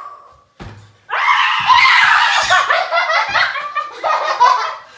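A woman laughing hard and loudly in rapid bursts, starting about a second in, with a few low thumps underneath.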